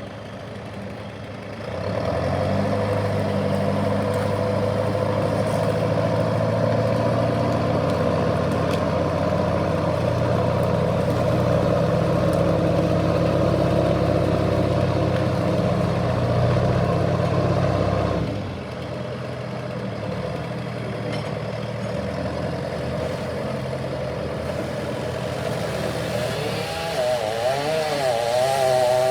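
A heavy vehicle's engine running steadily, then dropping to a lower, quieter running sound about two-thirds of the way through. Near the end a chainsaw starts up, its pitch swinging up and down as it revs.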